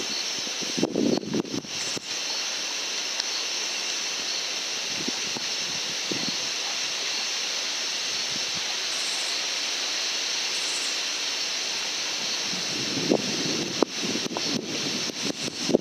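Steady high-pitched chorus of night insects, picked up by the ATN 4K Pro scope's microphone, with short low rustling bursts about a second in and again near the end.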